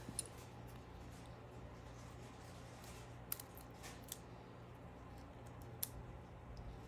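Faint, scattered sharp clicks of small repair tools and parts as the phone's internal components are taken apart, about four separate ticks over a steady low hum.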